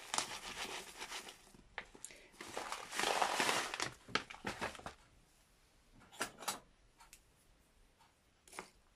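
Plastic muesli packet crinkling as muesli is shaken out of it into a bowl of milk, in two spells of rustling, the second about three seconds in. A few short light clicks and knocks follow in the second half.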